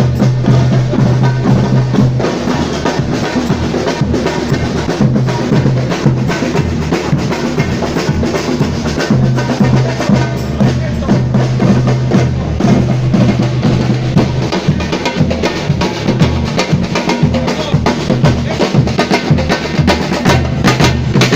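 Batucada drum ensemble playing a dense, steady samba rhythm: deep surdo bass drums under snare drums and other hand percussion.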